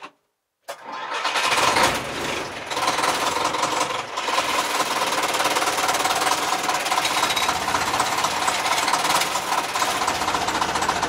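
The 1957 Csepel D352 fire truck's four-cylinder, 5.3-litre prechamber diesel (a Steyr licence engine) starting about a second in. It runs unevenly for a few seconds, then settles into its characteristic clattering low idle.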